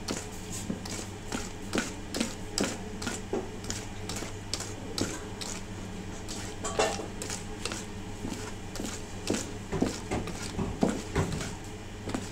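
Wire balloon whisk beating thick batter in a stainless steel bowl by hand: quick, irregular metallic clicks and scrapes as the wires strike the bowl, over a steady low hum.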